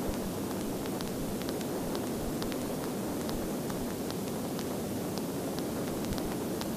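Steady engine and airflow noise of a single-engine Cessna light aircraft in flight: an even, dense rush with faint irregular ticks over it.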